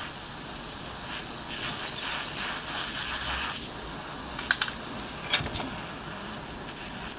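Handheld jet torch flame hissing steadily as it heats a pile of copper thermite that has not yet ignited. A few sharp clicks about four and a half and five and a half seconds in.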